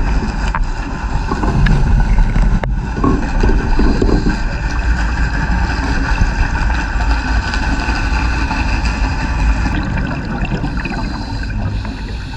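Steady underwater rumble and hiss, heard through a dive camera's housing, with a few faint steady tones above it and no distinct events.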